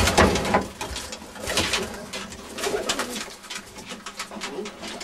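Tippler pigeons cooing in a loft, low wavering coos from about halfway through, with a burst of rustling and knocks in the first second.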